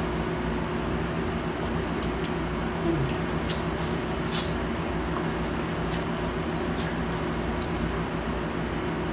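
Close-up eating sounds: wet chewing and scattered lip-smack clicks as corn on the cob is bitten and chewed, over the steady hum of a running fan.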